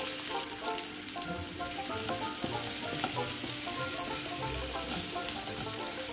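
Sliced onions sizzling in hot coconut oil in a frying pan, with a wooden spatula stirring them through in the second half.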